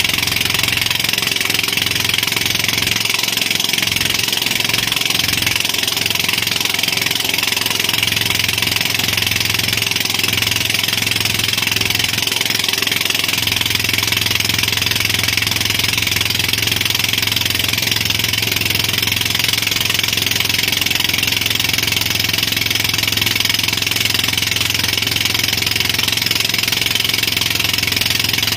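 Engine of the boat towing a banana boat, running steadily at speed over a steady hiss.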